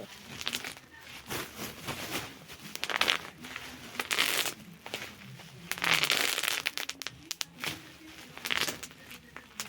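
Crackling, crinkling noises in several irregular bursts, the loudest about four and six seconds in: a noise made on purpose that sounds like a bone cracking.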